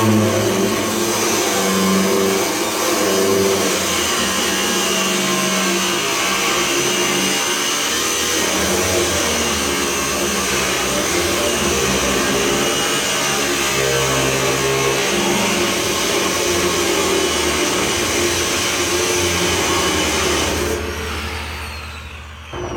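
Angle grinder cutting through the steel wall of a 250-gallon home heating oil tank, running steadily under load. Near the end it is switched off and the disc winds down with a falling whine.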